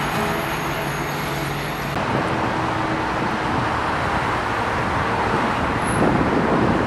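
Street traffic noise: a steady rush of passing cars on the road, getting a little louder near the end.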